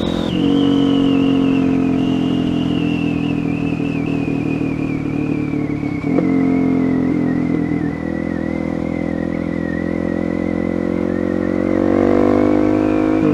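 Supermoto motorcycle engine at cruising speed, heard from the rider's seat: one steady engine note that sinks slowly over the first eight seconds as the bike slows. It rises again near the end as the throttle opens.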